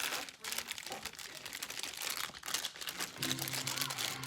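Crinkling and crumpling of a Funko mystery mini's blind-box packaging being torn open and the figure unwrapped by hand, in irregular rustles.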